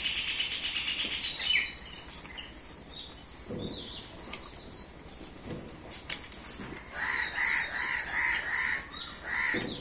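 Birds chirping, with short high chirps through the first half and then a run of about six evenly repeated call notes in the second half.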